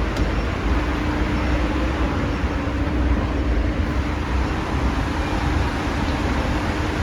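Steady rumble of a moving vehicle, with a faint steady hum over it from about half a second in.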